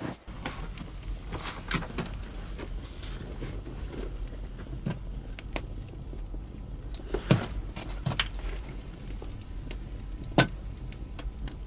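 Wood fire burning in a rock cave fireplace: a steady low rumble with frequent crackles and pops. A few sharp knocks about seven, eight and ten seconds in come as the metal kettle and logs are shifted in the fire.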